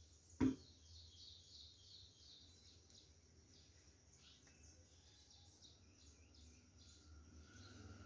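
Faint bird chirping in the background, with a single sharp knock about half a second in over a low steady hum.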